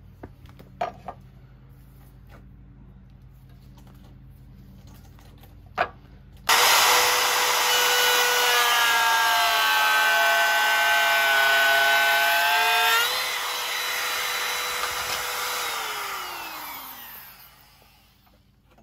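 Compact router switched on about a third of the way in, running with a high whine whose pitch sags a little while the bit cuts a groove across plywood, then rises as the cut ends. It is switched off and winds down with a falling whine near the end. A few light clicks come before it starts.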